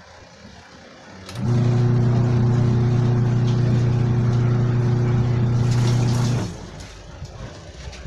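Washing machine's electric wash motor running with a steady hum as the repaired machine is tested. The motor starts about a second and a half in, runs for about five seconds, then stops.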